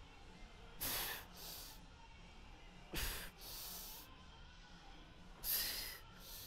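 A lifter's forceful bracing breaths before a heavy hack squat set: three double rushes of air, about two and a half seconds apart, with the first half of each pair the louder.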